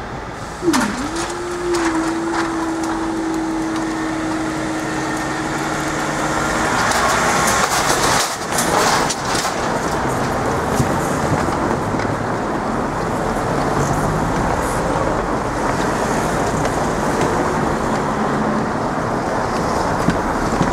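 Cars driving over the level crossing one after another, with a few sharp knocks. A steady mechanical hum starts about a second in, dips briefly, then holds for about six seconds before stopping.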